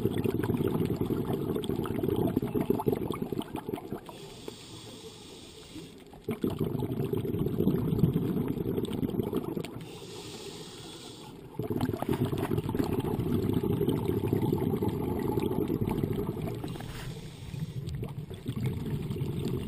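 Scuba diver breathing through a regulator underwater: long bursts of exhaled bubbles crackling past the microphone alternate with quieter inhalations that carry a faint high hiss, about three breaths in all.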